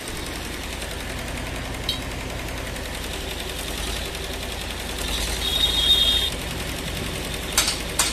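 Stick arc welding on a square-tube iron railing frame: the arc gives a steady crackling hiss over a low hum, with a couple of sharp clicks near the end.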